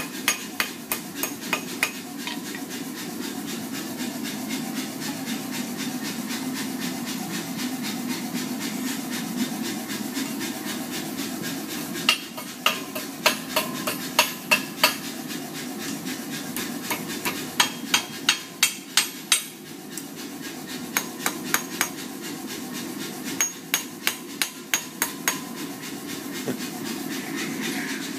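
Hand hammer striking hot steel bar stock on an anvil, forging a taper and scroll. The blows come in runs of several at about three a second, with pauses between runs. A steady low rumble runs underneath.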